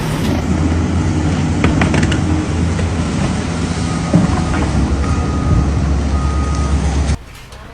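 Heavy machinery running with a steady low rumble and a few short knocks, dropping off abruptly about seven seconds in.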